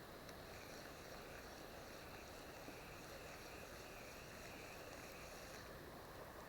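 Faint, steady rush of a small river's flowing water. A thin, high, wavering hum sits over it and stops about a second before the end.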